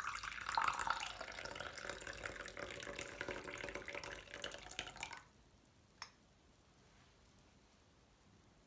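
Water running from a tap for about five seconds, then shut off abruptly, followed by a single short click.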